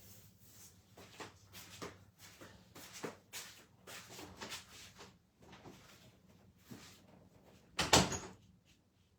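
A run of small knocks and clicks, then one loud thump about eight seconds in.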